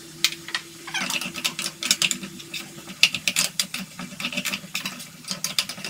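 Steel spatula scraping and clicking irregularly against a metal frying pan while thick onion-tomato masala paste is stirred and fried.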